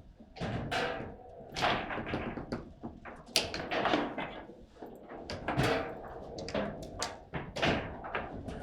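Table football being played: a quick, irregular run of sharp knocks and thuds as the ball is struck by the figures and bangs against the table.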